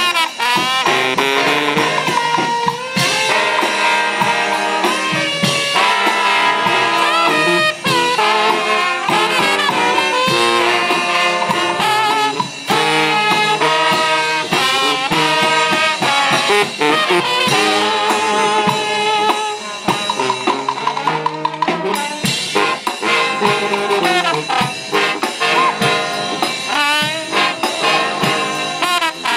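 Street brass band playing a lively jazz tune: several trombones, trumpets and a sousaphone with drums keeping the beat.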